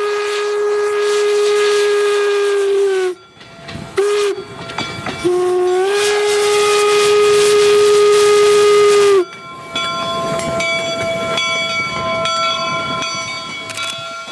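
Steam whistle of the replica Union Pacific No. 119 4-4-0 locomotive blowing: a long blast that stops about three seconds in, a short toot about a second later, then another long blast lasting about four seconds. Each note slides up a little as it starts. After that, a quieter steady tone with light clicking continues.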